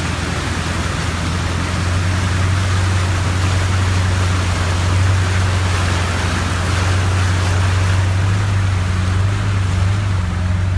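A car's engine running with a steady low hum as the car pushes through floodwater, with a continuous rush of water sloshing and spraying around it. It gets a little louder about two seconds in.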